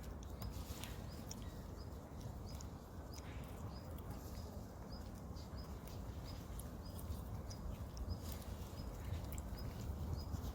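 Outdoor ambience: a steady low rumble with a short high chirp repeating about once a second and scattered light clicks.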